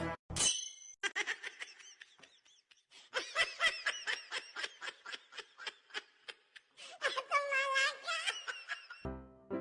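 High-pitched laughter: a long run of short, quick ha-ha pulses, several a second, breaking into a wavering laugh near the end. Music starts just before the end.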